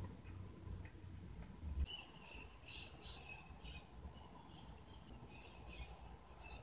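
A small bird chirping faintly in quick, high runs, about two seconds in and again near the end.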